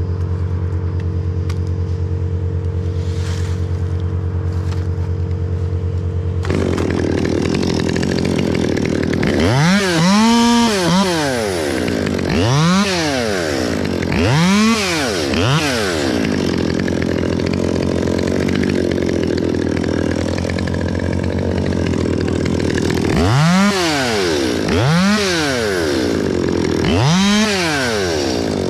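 Stihl MS 200T two-stroke top-handle chainsaw revved in seven short throttle bursts, each rising to full speed and falling back, in two groups. Underneath is a steady engine drone at an even pitch.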